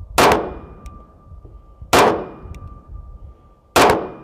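Three pistol shots about two seconds apart from a custom Atlas Gunworks 9mm carry pistol firing 115-grain rounds loaded with small pistol primers. Each shot is sharp, with a short fading tail.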